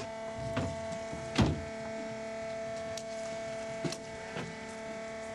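Steady mechanical hum made of several fixed tones, with a few scattered knocks over it; the loudest knock comes about a second and a half in.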